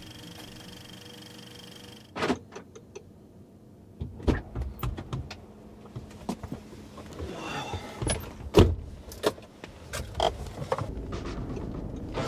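Someone getting into a car: the door opening, then a run of irregular knocks, clicks and clothing rustles as he settles into the seat, with one loud thud a little past halfway.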